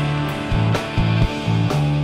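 Emo/indie rock band recording playing, led by guitar, with held low notes that change pitch several times in the middle and regular sharp hits.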